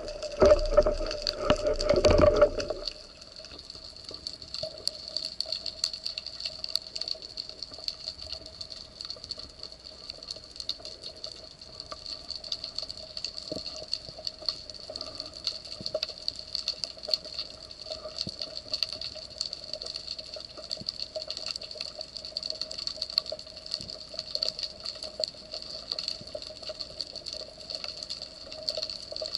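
Underwater sound picked up by a camera in its waterproof housing: a loud rush of water for the first two and a half seconds, then a steady faint crackle of tiny clicks over a constant hum.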